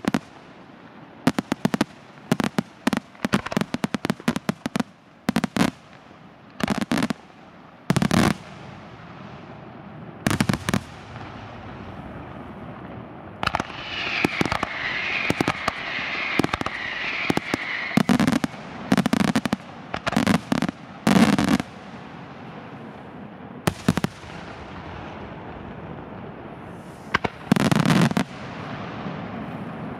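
Fireworks display: shells firing and bursting in a barrage of sharp bangs, some in quick clusters, with a spell of hissing midway.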